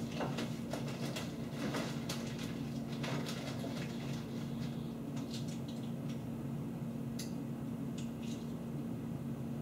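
Rummaging through an open refrigerator: scattered rustles, light knocks and clicks of items being moved about, busiest in the first few seconds and sparser afterwards, over a steady low hum.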